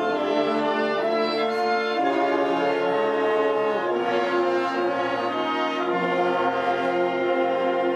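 Orchestral background music with brass, held chords changing every second or two.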